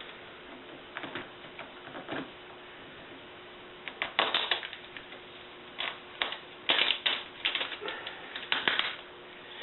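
Scattered light clicks and crinkles of hands working at a laptop display's cable connector, peeling off the tape that holds it. Busier clusters of clicks come about four seconds in and again from about six to nine seconds.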